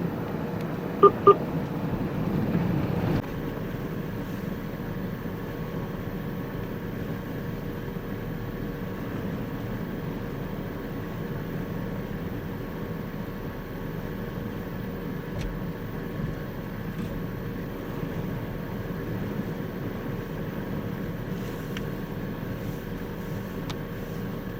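Steady road and engine noise of a vehicle driving, heard from inside the cabin. Two short electronic beeps sound about a second in, and the noise drops a little at about three seconds.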